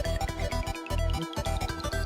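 Upbeat electronic background music with a steady, repeating bass beat.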